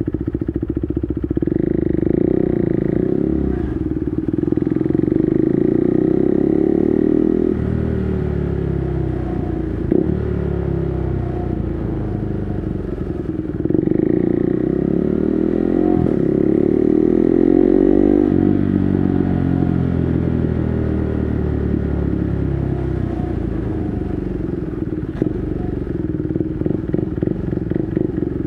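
KTM 390 Duke's single-cylinder engine through an SC-Project exhaust with its dB killer removed, ridden at low speed inside a parking garage. The revs climb and hold, fall away, climb again and fall again, then settle into a lower, choppier beat near the end.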